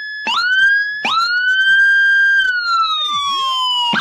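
Electronic siren sounding a police-escort (patwal) pattern: a held tone, then two quick upward whoops that each hold high, the second sliding slowly down before it cuts off at the end.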